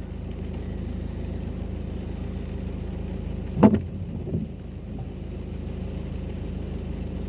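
Car engine idling steadily, heard from inside the cabin while the car waits at a light, with an even low hum. A brief sharp sound stands out about three and a half seconds in.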